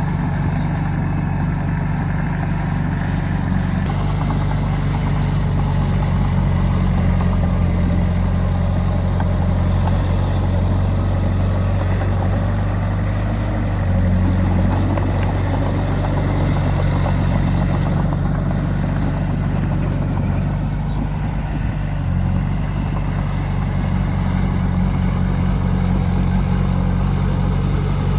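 Diesel engine of earthmoving machinery running steadily at a low, even pitch, shifting slightly in speed a couple of times.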